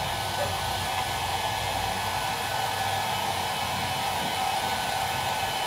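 Handheld hair dryer blowing steadily, drying a coat of varnish on a fibreboard craft piece.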